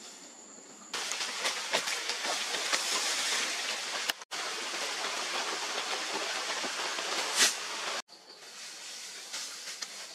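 Dense rustling and crackling of a large bundle of long cut grass carried on a man's back, the blades swishing against each other and against the plants. It starts abruptly about a second in and drops away suddenly near the end. Around it is a faint, steady, high insect whine.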